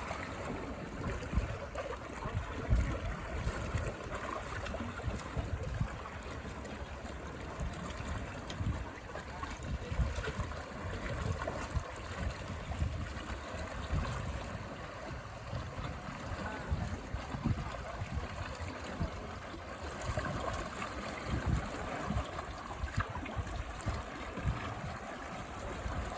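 Small sea waves washing and lapping on a fine-sand beach, a steady wash of water with irregular low thumps.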